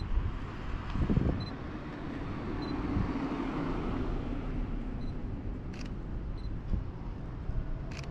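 Outdoor noise with a steady low rumble that swells a little about three seconds in, with a few sharp clicks later on.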